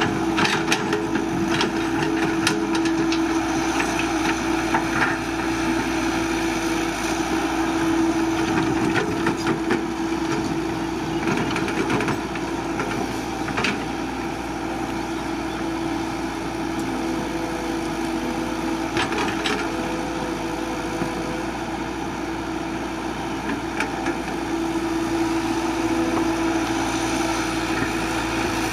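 CAT 312BL excavator's diesel engine running steadily under load, with scattered sharp cracks and knocks, mostly in the first half, as the machine breaks brush and digs rock and soil.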